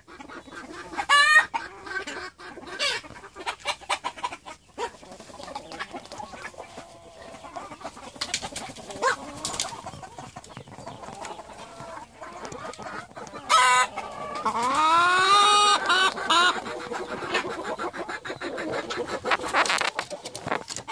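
A flock of white silkie chickens clucking and calling, with a loud short call about a second in. About two-thirds of the way through, a rooster crows once, a long call that rises and then falls.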